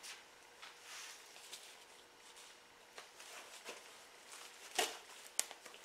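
Wild turkey feathers rustling as the carcass is handled, with light taps and two sharp clicks near the end while the wing tip is cut off at the broken wrist joint.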